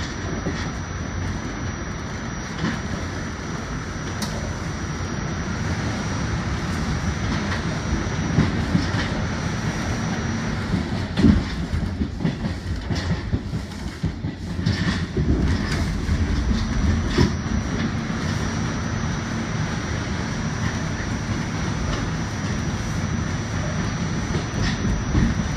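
R46 subway car running on ballasted track, heard from inside the rear cab: a steady rumble of steel wheels on rail with clicks over rail joints. Around the middle there is a run of sharper clatter as the wheels cross a switch.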